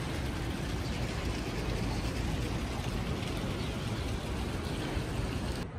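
Steady outdoor city background noise: an even wash of sound with no distinct events, cut off abruptly near the end.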